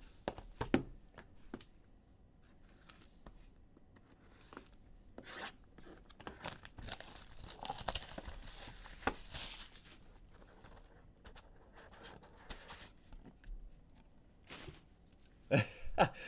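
A sports card pack's wrapper is torn open and crinkled by hand, with scattered clicks and taps as the cards are handled. The tearing and rustling is heaviest in the middle, and a few louder taps come near the end.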